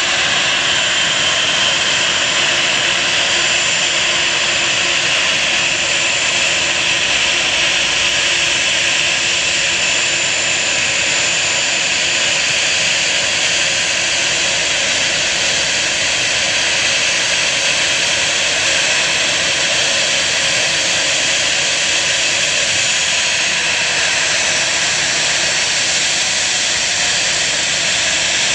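Jet airliner's turbofan engines running at idle on the apron: a loud, steady rushing noise with a constant high whine.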